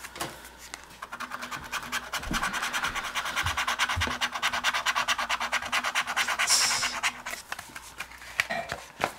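Scratch-off lottery ticket being scratched in many quick, rapid strokes that wear off the coating. The scratching builds about a second in and eases off near seven seconds.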